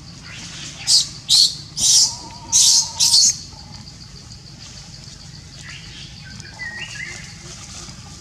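Macaque screaming: five shrill, high-pitched cries about half a second apart, followed by a few faint high squeaks.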